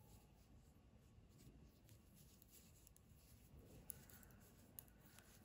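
Near silence: faint rustle of wool yarn being worked on knitting needles by hand, with a couple of light needle clicks about four seconds in.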